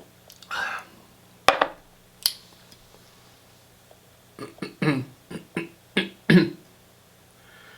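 A person sipping tea and making short mouth sounds, with two sharp clicks a second or two in and a run of quick mouth noises about four and a half seconds in.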